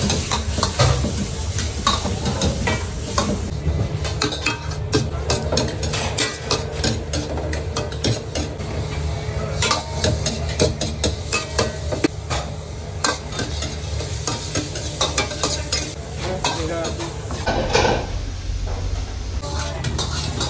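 Stir-frying in steel woks: a metal ladle repeatedly scrapes and clanks against the pans over the sizzle of food frying, with a steady low rumble beneath.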